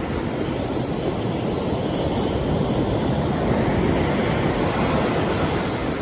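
Ocean surf breaking and washing up a sandy beach: a steady rushing that swells a little about halfway through.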